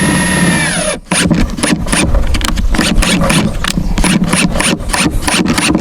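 A cordless power drill driving a screw into wood. The motor whine rises in pitch, holds, and winds down about a second in. A quick, uneven series of clicks and knocks follows, several a second.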